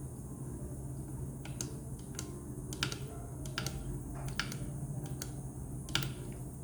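Anti-gravity water-drop humidifier running with a steady low hum and hiss, with about a dozen sharp, irregular clicks in the middle stretch.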